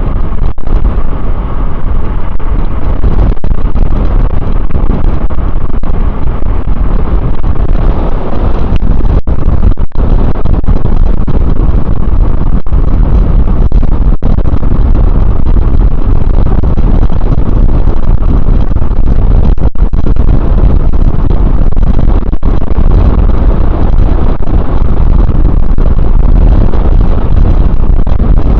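Loud, steady wind rush buffeting the microphone of a camera on a fast-moving e-bike.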